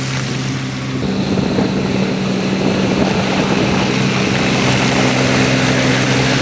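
Heavy diesel construction machine engine running steadily, growing louder with a higher engine note from about a second in.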